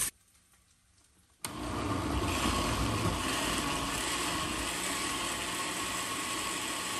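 Countertop blender running steadily, puréeing rehydrated guajillo chiles and tomatoes into a thick sauce. The motor starts abruptly about a second and a half in, after a brief silence.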